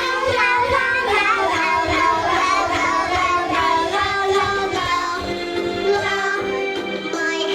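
Young children singing a song over instrumental accompaniment.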